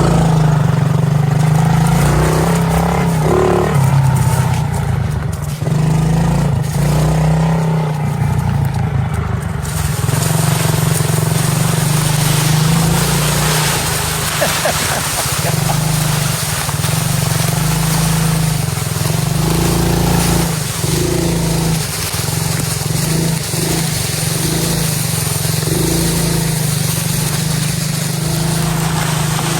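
Small single-cylinder engine of a Kayo kids' dirt bike running as the bike is ridden, with a steady low engine note.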